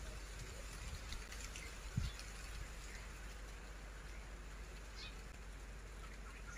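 Faint, short bird chirps now and then over a steady outdoor hiss, with one dull thump about two seconds in.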